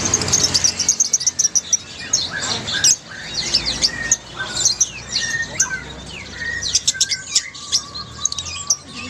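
A flock of Fischer's lovebirds chattering together: many rapid, overlapping shrill chirps and short downward-sweeping calls, with no pause.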